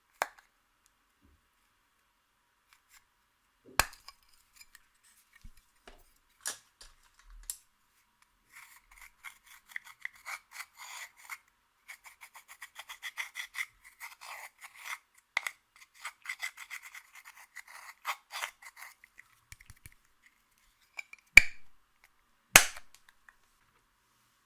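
Makeup being scraped and crushed with a hard tool: a long run of quick, dry scraping strokes, set among a few sharp clicks and taps, the loudest two near the end.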